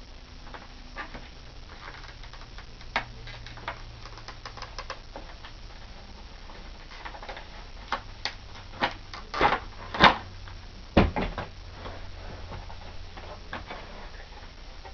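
Diecast model airliner being taken out of its packaging: scattered clicks, taps and crinkles of handled packaging, with a cluster of louder clacks about eight to eleven seconds in.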